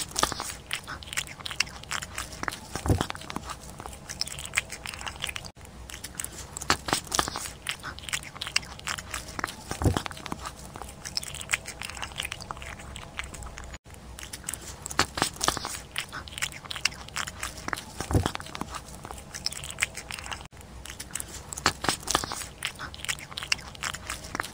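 A domestic cat eating chunks of wet food in gravy: rapid, wet chewing and lip-smacking clicks with hardly a pause. The sound drops out briefly three times.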